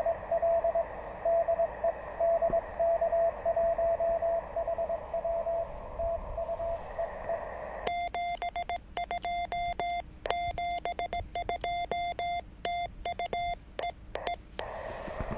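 Morse code from a Youkits HB1B QRP transceiver. For about the first eight seconds an incoming CW signal is keyed as a steady mid-pitched tone over receiver hiss. Then the hiss drops out and the set's sidetone sends Morse with sharp clicks, stopping a little before the end as the hiss returns.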